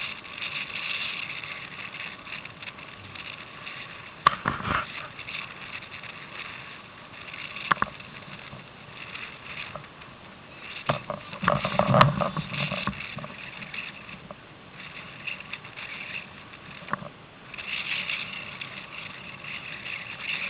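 Strong gusty wind blowing on the microphone over choppy sea water sloshing and splashing around a kayak, with a few sharp knocks and the loudest gust about twelve seconds in.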